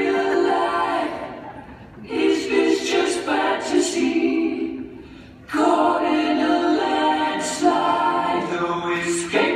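Unaccompanied singing in three phrases, the sound dipping about a second in and again around five seconds in.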